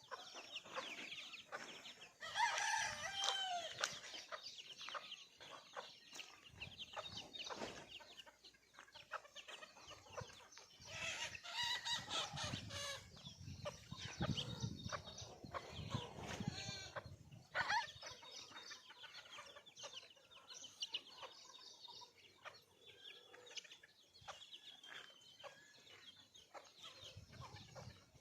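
A flock of desi (country) chickens clucking and calling, with a rooster crowing among them. Louder calls come about two seconds in, around the middle and again a little later.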